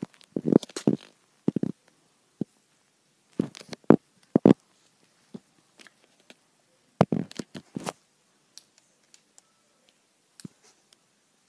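Handling noise: irregular knocks, clicks and rustles in short clusters, the sharpest knocks about four seconds in, thinning out to a few faint clicks near the end.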